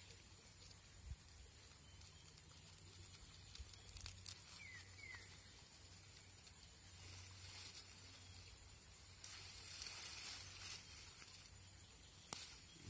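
Faint rustling and scraping from handling a hooked turtle while the hook is worked free. Two short high chirps come a little before halfway, a louder stretch of rustling about three quarters in, and a sharp click near the end.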